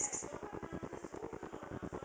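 Background music with a fast, even pulse, and a brief high rustle right at the start.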